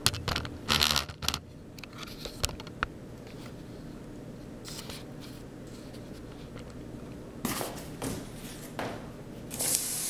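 Scraping and rustling with a few sharp knocks as a large board is handled and moved, with louder scrapes in the last couple of seconds.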